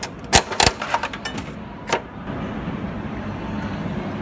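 A few sharp clicks and clacks from the bouncy ball vending machine's coin-and-crank mechanism. About two seconds in they give way to a steady rolling rumble as a rubber bouncy ball runs down the machine's clear plastic spiral chute.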